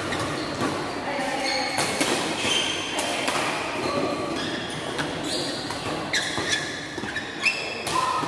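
Badminton rally: racket strings striking the shuttlecock with sharp smacks about once a second, mixed with short squeaks of court shoes on the court mat.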